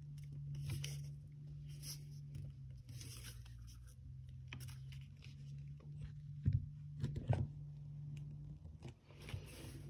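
Folded 80 gsm origami paper being handled and creased by hand: soft rustling and sliding, with a couple of sharper crinkles about six and a half and seven and a half seconds in. A steady low hum runs underneath.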